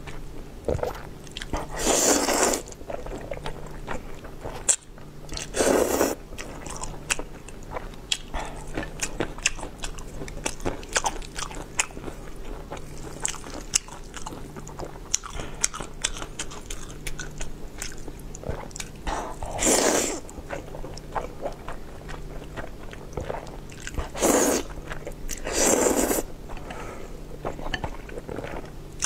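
Eating black bean sauce noodles: about five loud slurps of roughly half a second each, with chewing and wet mouth clicks throughout.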